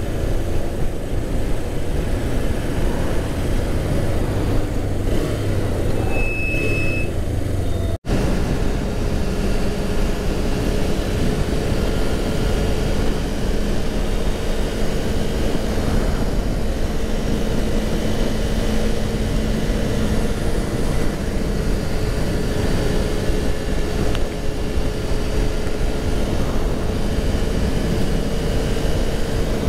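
Motorcycle cruising at speed: wind rushing over a helmet-mounted microphone with the engine running steadily underneath. The sound cuts out for an instant about eight seconds in, and a steady engine hum shows more plainly after that.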